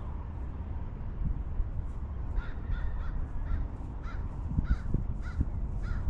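A crow cawing repeatedly, about ten short caws at roughly two a second, starting a couple of seconds in, over a low rumble of wind on the microphone.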